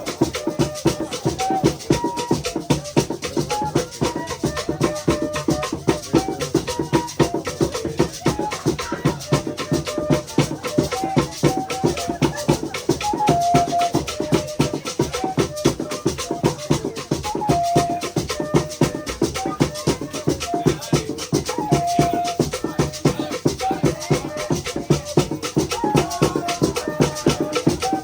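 Music with fast, steady drumming and shaker rattles, and short high melodic notes sounding over the beat.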